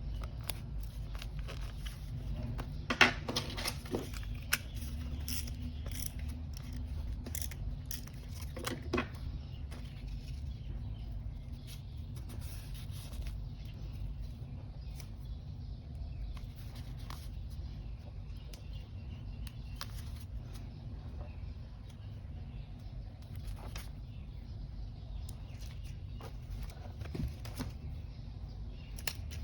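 Paper-craft handling sounds on a desk: scattered rustles, taps and small clicks of paper, stickers and tools, with the sharpest clicks about three seconds and nine seconds in. Under them runs a steady low hum.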